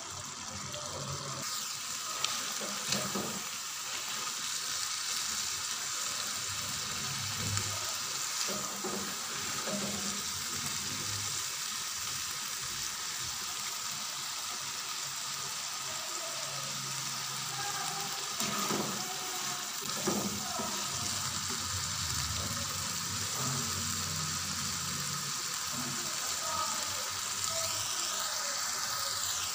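Potato and radish-pod curry boiling and sizzling steadily in a pan over high heat as its water cooks off, before the oil separates. A few short scrapes of a silicone spatula stirring the pan.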